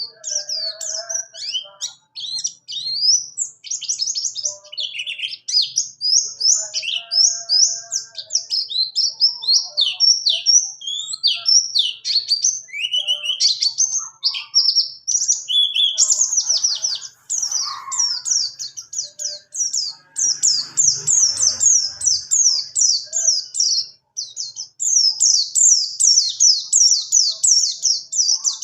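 Oriental white-eye (pleci buxtoni) singing a long, fast rolling song of high chirps and trills that runs almost without a break, pausing only briefly twice.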